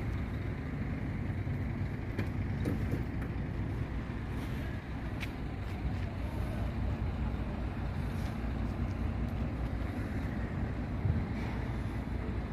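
Steady low rumble of an idling diesel engine, with a few faint knocks.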